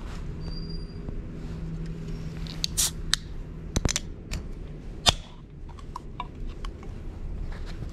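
Aluminium drink can being handled, its tab clicking under the fingers, then cracking open with a sharp pop and a brief fizz about five seconds in. A low steady hum runs underneath through the first half.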